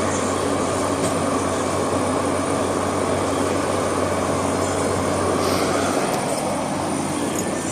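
Haier JA-SP25L spot air conditioner running: its fan blows with a steady rushing sound over a low hum. The hum drops out about six seconds in while the airflow carries on.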